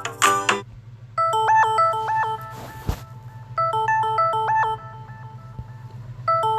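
Samsung Galaxy S21 ringtone: a short melody of clean electronic tones repeating three times, about every two and a half seconds. A low steady hum runs underneath, and the last notes of a different tone end just at the start.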